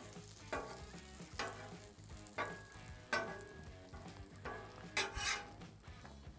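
Butter sizzling on a hot Blackstone flat-top griddle as slices of bread fry in it, with a few short, sharper sounds about every second.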